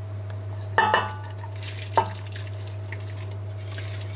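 Two clinks against a stainless pot about one and two seconds in, the first ringing briefly, as grated cheese is tipped in, then a wire whisk stirring through the milk. A steady low hum runs underneath.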